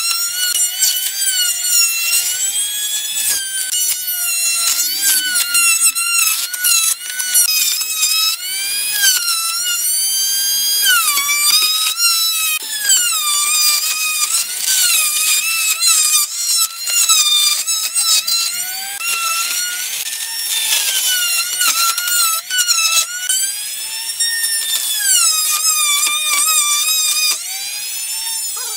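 Handheld trim router running at high speed and cutting a circular groove through wooden strips on a pivoting circle-cutting jig. Its high whine keeps dipping and recovering in pitch as the bit bites into the wood.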